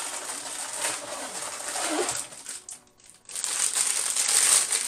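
Plastic bags of LEGO pieces crinkling and rustling as they are pulled from the box and handled. There is a short pause about three seconds in, then louder crinkling.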